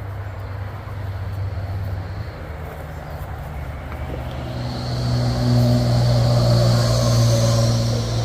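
Road traffic on a highway close by: a steady drone, with a vehicle passing that gets louder about halfway through, its tyres hissing.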